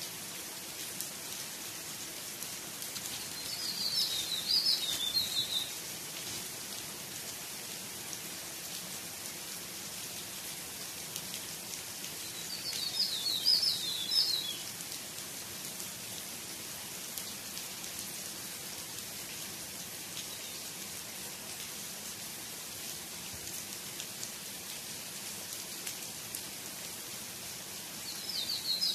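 Steady rain falling on grass and trees, an even hiss. Over it a bird calls three times, each a quick run of high chirps lasting about two seconds.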